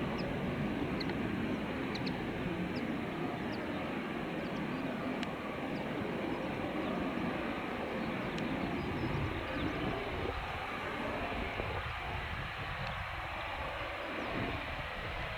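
Distant Eurofighter Typhoon jet engines running steadily while the jets hold before takeoff, a low rumble that thins out about ten seconds in.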